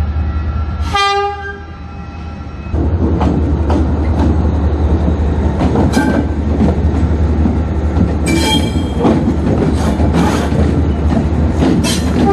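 A train horn gives a short blast about a second in. Then a train runs past with a steady low rumble and clicking wheels over the rail joints, with a few brief high notes further on.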